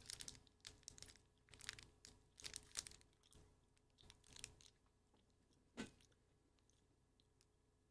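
Faint crunching and crackling of a Cadbury Flake chocolate bar and its plastic wrapper as it is handled, bitten and chewed. The crackles come irregularly, mostly in the first three seconds, with a sharper one near the end.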